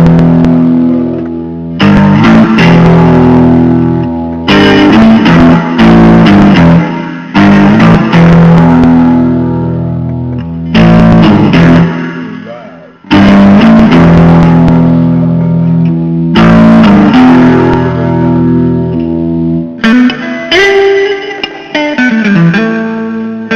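Blues guitar music, instrumental: loud struck chords that ring on for a second or two each over sustained low notes, with a brief drop about halfway. Near the end it changes to a quicker run of single notes.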